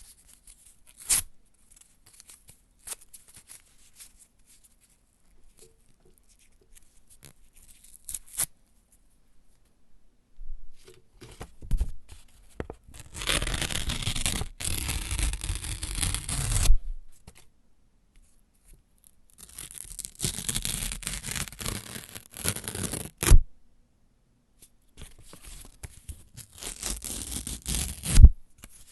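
Paper being torn. For the first ten seconds there is faint rustling and a few short rips. Then come three long tearing strokes of three to four seconds each, and the second and third end in a sharp final rip.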